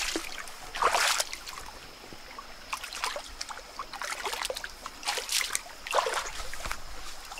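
Shallow stream water splashing and sloshing as a person wades through it and jabs a stick into it, in several uneven bursts, the loudest about a second in and around five to six seconds in.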